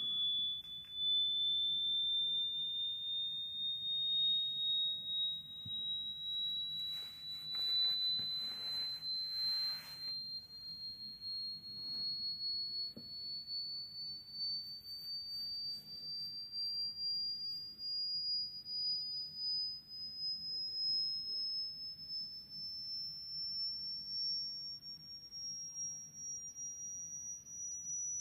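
Pure sine test tone from a hearing-test frequency sweep, a single high whistle rising slowly and steadily in pitch.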